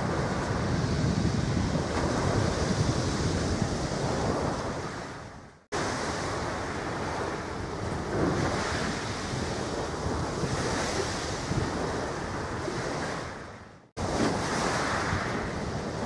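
Wind rushing over the camera microphone, with waves washing at the water's edge. It fades out and cuts back in twice, at edits between shots.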